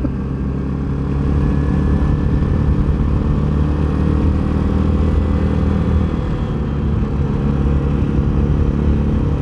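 Access Shade 850 Xtreme quad's engine running steadily at cruising speed, with a constant low drone and no change in pitch.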